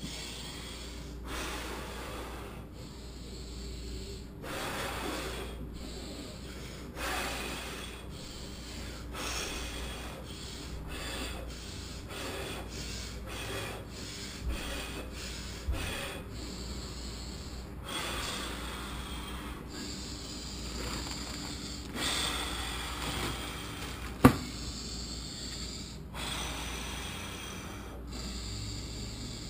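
A person breathing deeply and forcefully in and out, the breaths coming in a steady rhythm about every second or two while doing bodyweight squats. A few sharp knocks break in, the loudest about three-quarters of the way through.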